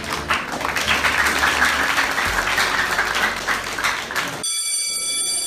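A classroom of students clapping, a dense spatter of hand claps. Near the end the clapping gives way to a buzzing electronic tone that lasts about a second and cuts off.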